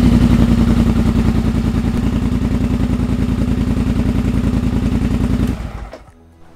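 Polaris Sportsman 850's parallel-twin engine idling steadily and evenly with the throttle fully closed, then switched off about five and a half seconds in.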